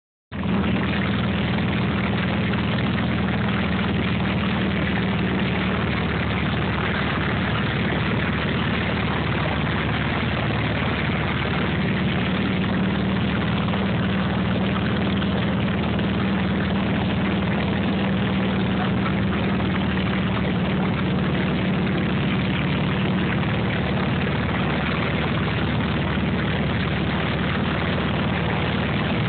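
Cabin noise of a light propeller airplane in flight: the engine and propeller running steadily, heard from inside the cockpit, with a steady low hum under a loud, even rushing noise.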